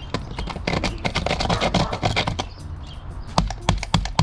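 Hand tool scratching into textured stucco to scribe a mark where a hole will be drilled, followed near the end by a quick run of sharp clicks.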